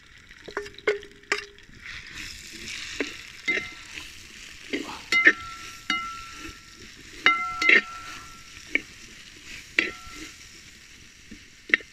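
Sliced onions sizzling in hot coconut oil and rabbit fat in a large metal uruli, stirred with a metal spatula. The spatula knocks against the pot about seven times, each knock ringing briefly.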